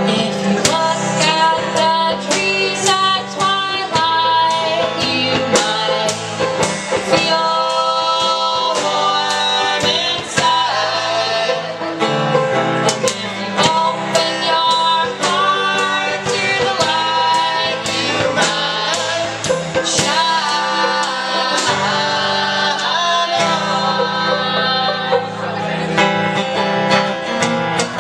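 Acoustic folk band playing, with plucked guitar strings to the fore.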